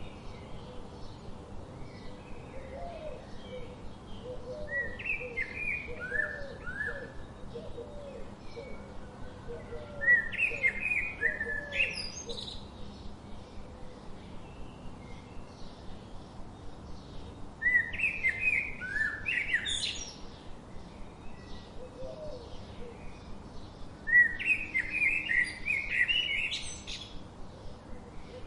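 Forest birdsong: a bird sings a loud, high phrase of quick chirps ending in rising sweeps, four times, about every seven seconds. Between the phrases, a lower, softer series of short repeated call notes comes from another bird over a steady background hiss.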